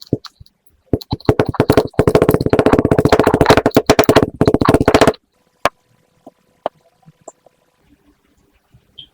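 Kinetic sand being squished and crushed close to the microphone: a dense, fast crackling for about four seconds that stops abruptly, then a few isolated small clicks.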